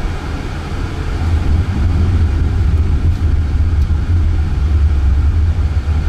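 Road and tyre noise inside the cabin of a moving Jaguar I-PACE electric car: a steady low rumble that grows a little louder about two seconds in.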